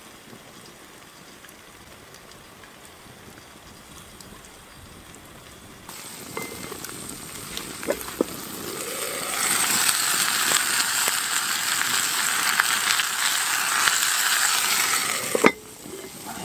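Campfire crackling around a cast-iron Dutch oven: faint at first, then a dense crackle and sizzle that swells about halfway through. A few light clinks of a wooden stick against the lid handle come through, with a sharp clink near the end.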